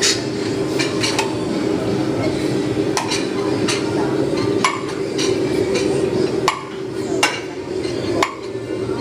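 Metal gym weights clinking and clanking in a weight room, a sharp clink about every second at irregular spacing, over a steady background din.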